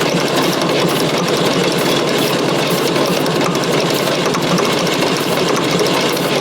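Fordson Super Major's 3.6 L four-cylinder diesel cranking steadily on the starter without firing, an even rhythmic churn. It is being turned over to check fuel delivery at the injectors, and it won't start because number 3 cylinder gets no fuel from a stuck injection pump plunger.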